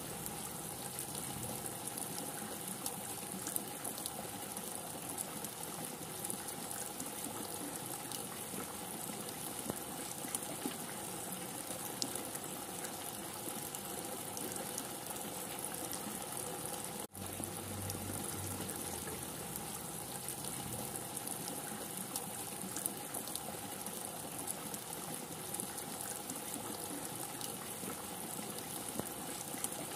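Steady heavy rain falling, an even hiss with scattered faint drop ticks. It cuts out for an instant a little past halfway.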